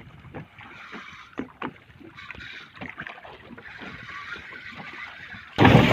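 Water lapping with scattered light knocks against a small fishing boat. Near the end a boat engine cuts in abruptly, running steadily and loudly with wind noise.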